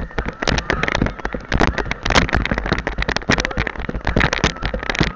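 Several quad (ATV) engines running together, heard as a dense, irregular crackle.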